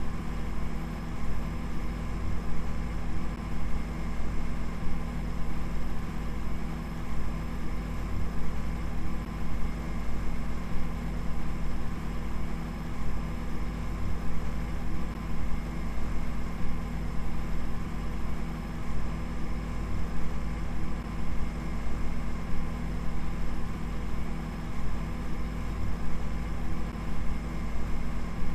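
Steady electronic drone: many held tones layered over a deep low rumble and a faint hiss, unchanging throughout.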